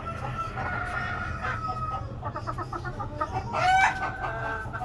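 Hamburg chickens: a rooster crowing in a long held note, then quick clucking a little after two seconds in. A louder crow rises near the four-second mark and holds to the end.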